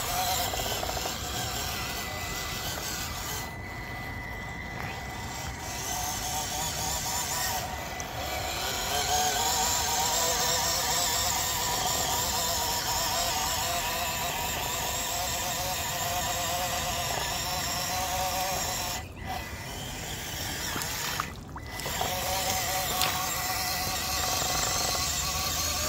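Traxxas TRX4M 1/18-scale RC crawler's small electric motor and geartrain whining, the pitch wavering up and down with the throttle, over a hiss of the tyres churning through mud and water. It cuts out briefly a few times as the throttle is let off while the truck struggles, getting buried in the boggy mud.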